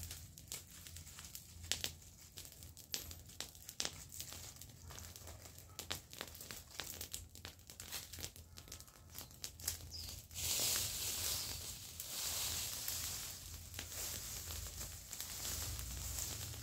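Dry brush and leaves being raked and dragged across the ground, with many sharp twig snaps and crinkles. About ten seconds in, a louder, denser crackling hiss sets in as the brush pile burns more strongly.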